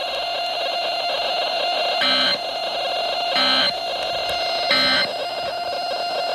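Three short bursts of Emergency Alert System end-of-message data tones, about a second and a third apart, over a steady droning background tone.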